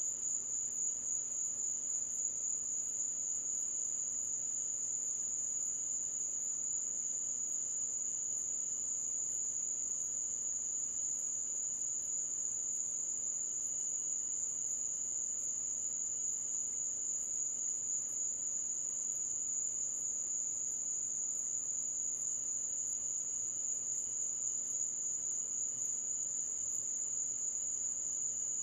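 Night insect chorus of crickets trilling in one steady, unbroken high-pitched drone. A fainter, higher tick repeats about once a second above it.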